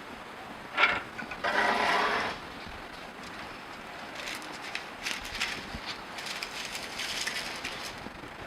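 Heat press mechanism: a knock, then about a second of loud ratcheting rasp, followed by faint scattered clicks and rustles of handling.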